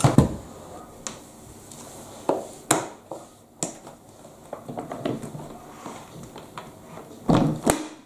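Plastic clicks and knocks from a Numatic Henry vacuum cleaner as the side catches of its motor head are unclipped, then a louder double knock near the end as the head comes off the tub.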